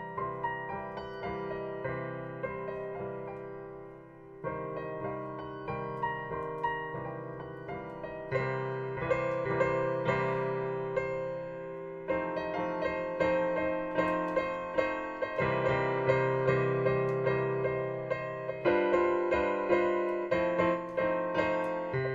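Piano playing a demonstration on the pentatonic scale: melody notes struck over held chords, with the harmony changing every few seconds and a short let-up about four seconds in.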